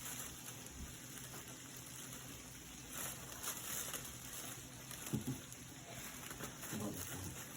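Faint rustling and crinkling of toy packaging being pulled and torn at by hand, busier a few seconds in.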